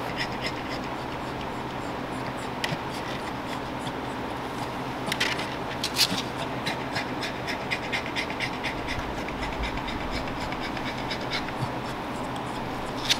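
Boston terrier in labor, restless in a plywood whelping box: a run of short scratching and rustling sounds from her claws on towels and wood, the loudest a little past the middle, over a steady background hum.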